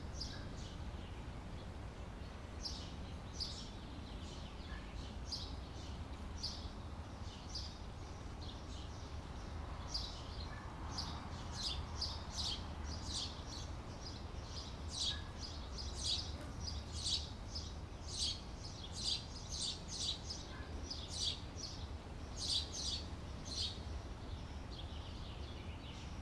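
Outdoor summer ambience: birds chirping in short high calls, sparse at first and frequent from about halfway through, over a steady low background rumble.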